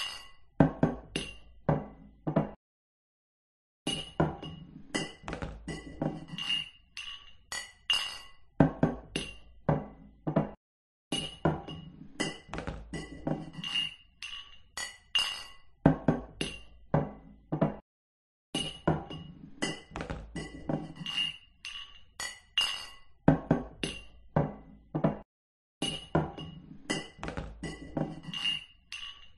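Glasses clinking together in a rapid, irregular run of toasts, several clinks a second, each ringing briefly at a bright pitch. The clinking stops dead for about a second roughly every seven seconds, then carries on.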